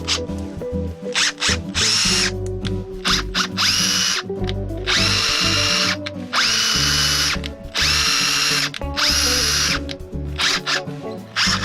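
Makita TD160D cordless impact driver run in about five short trigger pulls, its motor whine rising in pitch as it spins up and then holding steady before it stops, with small clicks between the pulls.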